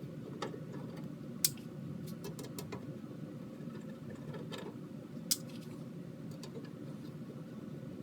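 Scattered small, sharp metallic clicks and taps of an Allen key working hex screws loose on a metal MIDI foot controller's casing. The two loudest clicks come about a second and a half in and near five seconds in, over a steady low hum.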